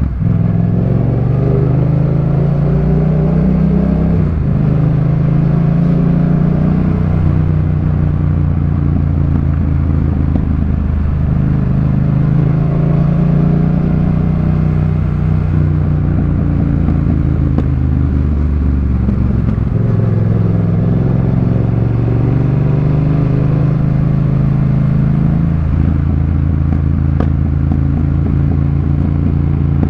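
Yamaha MT-07's parallel-twin engine breathing through a Jeskap K4 full aftermarket exhaust while riding, with the engine note stepping up and down several times as the revs change.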